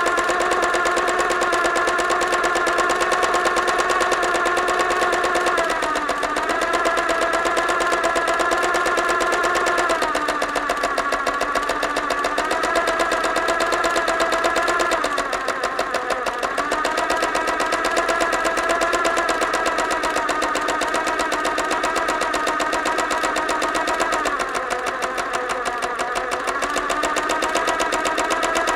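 Electric sewing machine stitching at speed: a rapid, even run of needle strokes over the motor's whine. The machine slows briefly several times and then picks up speed again.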